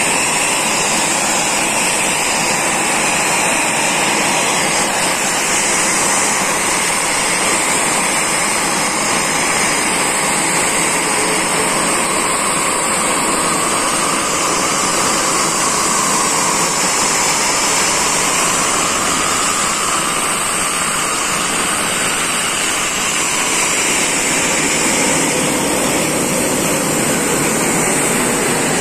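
Eurofighter Typhoon's twin EJ200 turbofan engines running as the fighter taxis, a loud steady rush with a high whine that slowly rises and falls in pitch.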